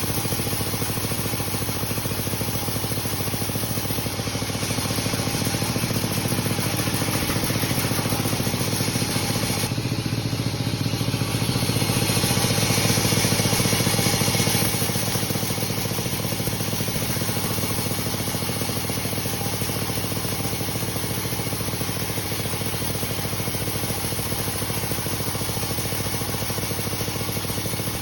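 Sawmill machinery running steadily with a droning, engine-like hum, getting louder for a few seconds around the middle.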